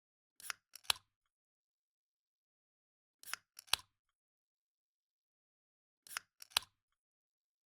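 Aluminium soda can's pull-tab being opened three times, about three seconds apart. Each opening is a quick cluster of three short cracks, the last the sharpest and loudest, with dead silence between.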